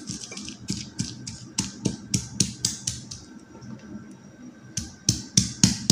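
Stone pestle grinding and crushing chillies, shallots and garlic in a stone mortar (Indonesian cobek and ulekan), a quick run of short scraping knocks about four a second. The strokes soften for a moment in the middle and come louder again near the end. This is the coarse pounding of a balado chilli paste.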